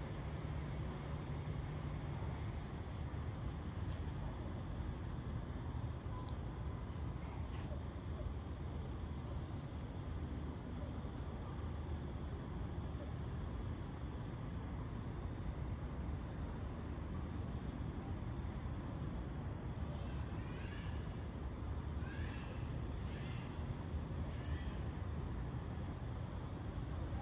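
Insects trilling continuously at a high pitch with a fast, even pulse, over a steady low background rumble; a few short chirps come near the end.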